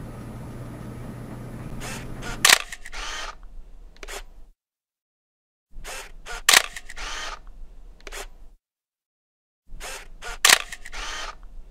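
Steady engine hum heard from inside a moving vehicle. About two and a half seconds in it gives way to a camera shutter sound that repeats three times, about four seconds apart, each a sharp click and a short rasping whir, with dead silence between.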